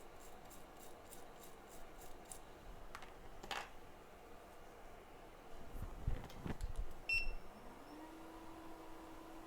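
Electronics repair bench: faint ticking about three times a second for the first couple of seconds, then a few soft knocks from tools being handled. About seven seconds in, soldering equipment gives a short electronic beep, and a steady hum starts, rises briefly in pitch and then holds.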